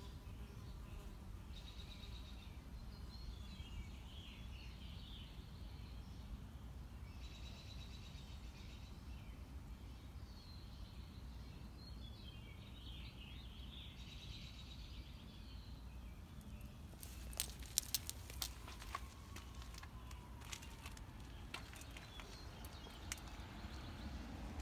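Small songbirds chirping and calling over a steady low outdoor rumble, then a run of sharp clicks and taps in the last third.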